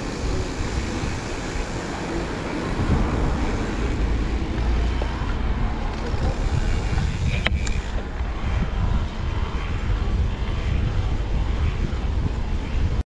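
Wind buffeting the camera microphone of a mountain bike being ridden along a paved street, with tyre and road noise. A sharp click comes about seven and a half seconds in, and the sound cuts off suddenly at the end.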